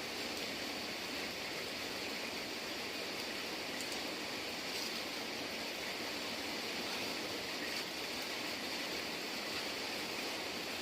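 Steady rain falling, an even hiss with a few faint tick-like drips.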